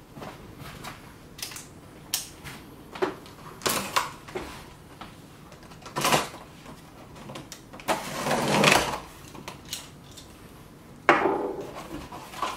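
Box cutter slitting the packing tape on a cardboard box: scattered short taps and scrapes, then a scratchy cut lasting about a second past the middle. Near the end the cardboard flaps rustle and scrape as they are pulled open.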